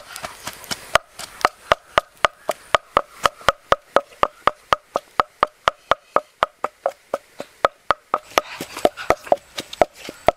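Wooden pestle pounding in a wooden mortar: a quick, regular run of hollow knocks, about four a second.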